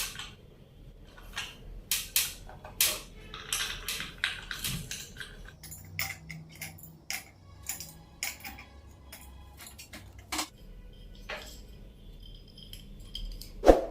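Metal parts of a ceiling fan being handled and fitted together: irregular clinks and knocks of metal on metal, with a louder clang near the end.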